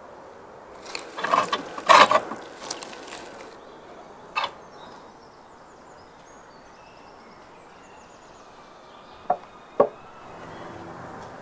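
Knife and metal skewers knocking and clinking as grilled meat is cut and served onto a plate: a burst of clatter in the first few seconds, a single knock a little later, and two sharp clicks near the end.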